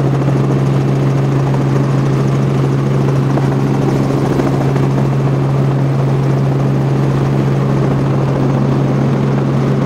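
Helicopter in flight heard from inside the cabin: a loud, steady drone of engine and rotor with a strong low hum and no change in pitch.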